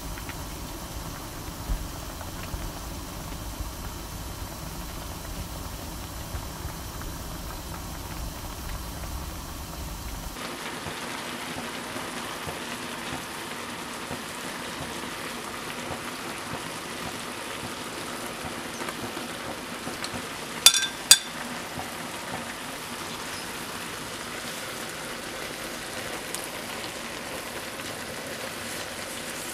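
Tteokbokki sauce simmering in a pan with instant noodles and rice cakes, a steady bubbling hiss. About a third of the way in, a low rumble drops out and a brighter hiss takes over. Two sharp clicks, half a second apart, come a little past the middle and are the loudest sounds.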